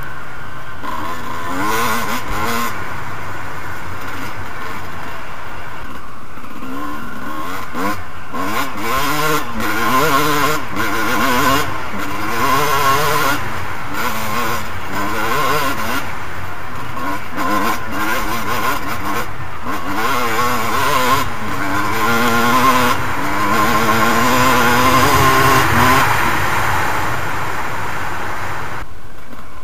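Suzuki RM250 two-stroke motocross bike ridden across rough ground, its engine revving up and falling back again and again as the throttle is worked. Wind buffets the helmet-mounted microphone throughout.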